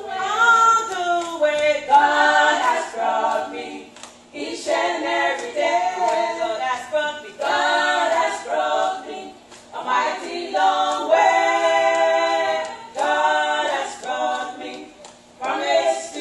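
Women singing a cappella into a microphone, in sung phrases a few seconds long with short breaks between them and no instruments.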